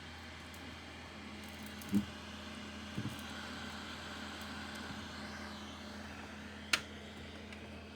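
MacBook Pro cooling fan running with a loud, steady whir and low hum, on a laptop that runs but shows no display. Two soft thumps come about two and three seconds in, and a sharp click near the end.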